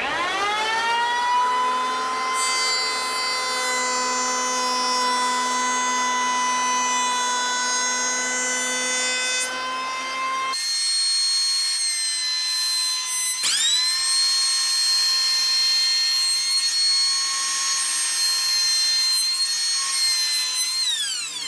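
Wen 6534 8-amp electric hand planer's motor spinning up with a rising whine, then running at a steady high pitch. About halfway through the sound changes suddenly to a different, higher steady whine, which winds down near the end.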